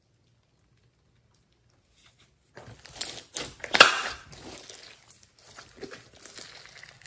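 Near silence for about two and a half seconds, then hands squeezing and kneading glossy slime: an irregular run of sticky crackling, with the loudest crackle a little past the middle.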